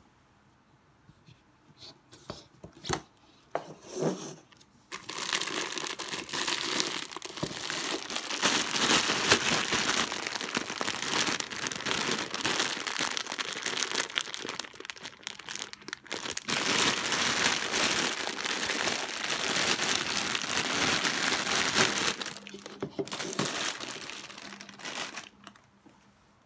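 A clear plastic bag full of cardboard jigsaw puzzle pieces crinkling and crackling as it is handled, starting about five seconds in and stopping shortly before the end. It follows a few light knocks at the start.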